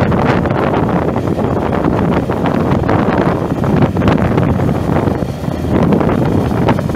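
Wind buffeting the microphone over a steady low engine drone, likely the Case IH 9370's Cummins six-cylinder turbo diesel running. The level is steady, with a brief dip about five seconds in.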